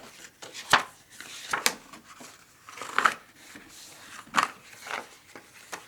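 Scored cardstock being folded along its score lines, giving a series of short crisp crackles about a second apart, with light paper rustling between them.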